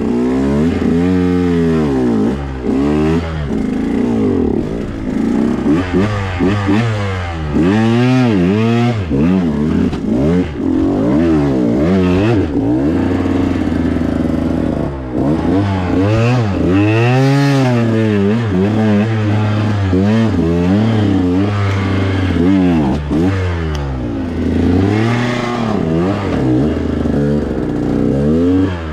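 KTM 125XC's 125cc two-stroke single-cylinder engine revved up and dropping back again and again in short bursts, pitch climbing and falling several times a few seconds apart, as the clutch is slipped to crawl over rocks at walking pace.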